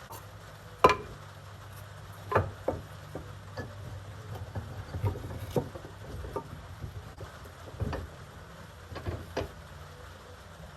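Scattered knocks and clunks of the log carrier's wooden handle being handled and set down on the bench, the loudest about a second in, over a steady low hum.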